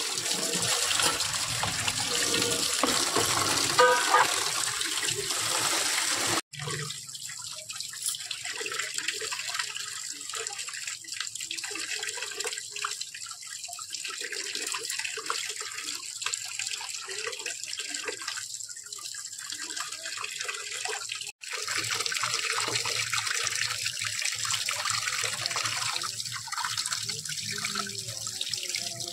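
Water running and splashing steadily, cut off for an instant twice.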